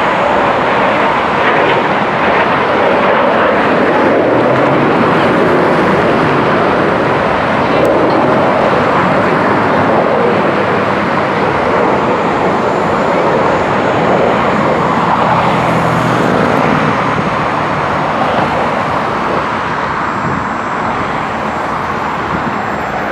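Snowbirds' Canadair CT-114 Tutor jets flying past, giving a loud, steady rushing jet noise that swells and eases a little over time.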